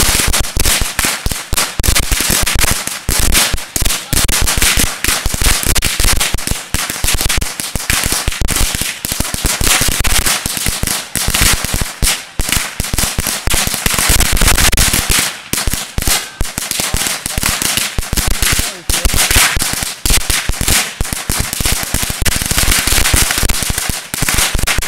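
A long roll of Black Cat firecrackers going off in a continuous rapid crackle, dense overlapping bangs with no break, with somewhat louder clusters here and there.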